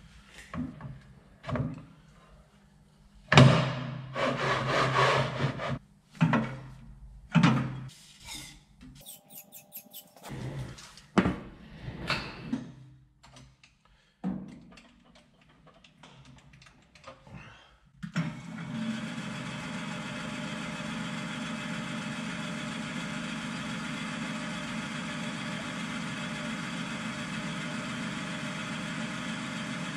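Irregular knocks and clatter as a bare aluminium engine block is shifted about on a drill press table, then about eighteen seconds in the drill press motor starts and runs steadily.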